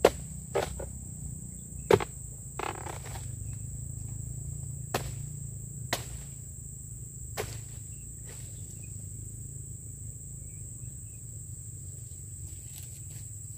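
Pole-mounted oil palm harvesting chisel (dodos) chopping into a fruit bunch's stalk: about seven sharp knocks, the first few close together and the rest a second or more apart. Steady high insect drone throughout.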